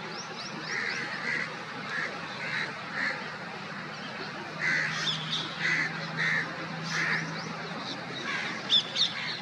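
Parrots squawking repeatedly in short, harsh calls while squabbling over food, with thinner high chirps mixed in. Two sharp, louder screeches come near the end.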